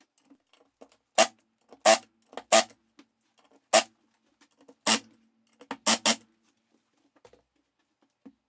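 Cordless impact driver driving screws into a plywood frame in about seven short bursts, the last two close together.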